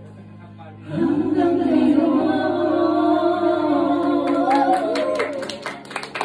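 Man singing a long held note through a karaoke microphone over a backing track. The note comes in about a second in, wavers with vibrato, and fades near the end, the song's closing note.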